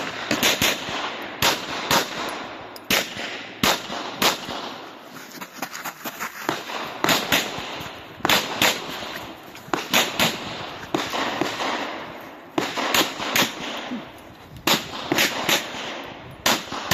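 Semi-automatic pistol fired in fast strings during an IPSC stage run, the shots coming mostly in quick pairs and threes with short pauses between groups as the shooter moves between positions. Each shot cracks sharply and echoes off the range berm.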